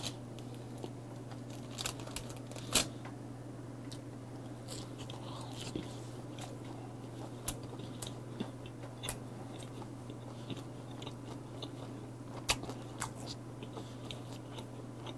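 Close-up crunching and chewing of a whole air-fried capelin (shishamo), eaten head to tail, with scattered sharp crunches, the loudest about three seconds in and again about twelve seconds in, over a steady low hum.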